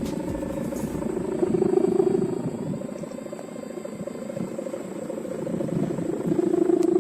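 Sendaren, a petung-bamboo kite hummer with a thin mica ribbon, droning in the wind with a low, buzzy snoring tone. The drone swells and fades with the wind, loudest about two seconds in and again near the end.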